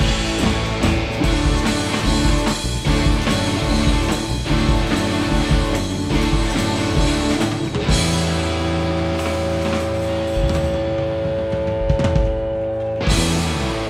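Live rock band with electric guitars and a drum kit playing. A steady beat gives way about halfway through to a long held chord over the drums. A final hit near the end closes the song.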